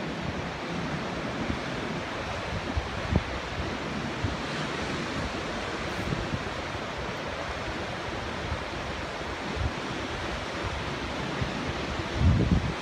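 Wind on the microphone: a steady rushing hiss, with heavier low buffeting near the end.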